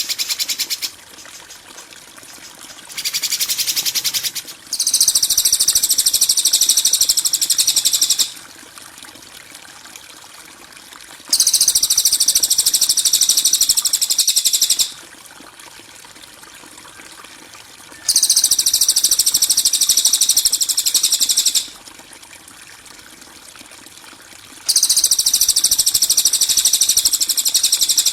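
Masteran recording of a harsh, buzzy high-pitched bird call, the rough 'kasaran' kind of note used to train songbirds. The call comes four times at even intervals, each lasting about three and a half seconds, with a shorter rapid rattling trill near the start.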